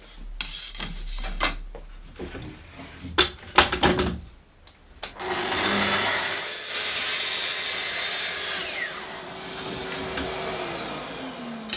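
A few sharp knocks of wooden pieces being set down. Then a Festool TS55 plunge track saw starts, its motor whine rising to speed, cuts a short piece of trim, and winds down with a falling whine. A dust extractor's lower hum runs on a little longer before it too winds down.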